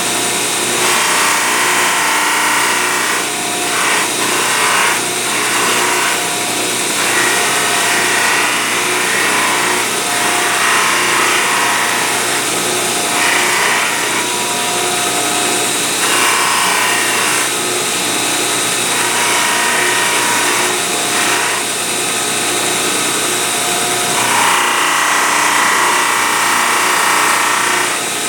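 A power tool running steadily while grinding stainless steel, the workpiece pressed against it and lifted off again every few seconds so the grinding noise swells and drops.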